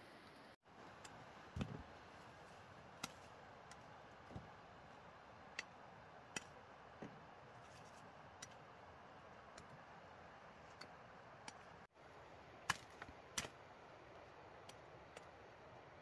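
Faint steady background with scattered light clicks and taps, irregularly spaced; the two sharpest come about three-quarters of the way through.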